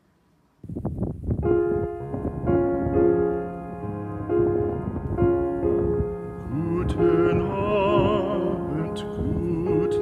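Background piano music that starts about half a second in, after near silence. A singing voice with vibrato joins in a little past the middle.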